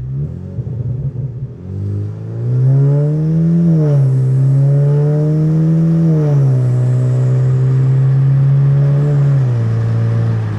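Kia Optima 2.0-litre turbocharged four-cylinder pulling away at part throttle, about 30%. The engine note climbs, then drops in pitch three times as the six-speed transmission upshifts, just after a transmission fluid change.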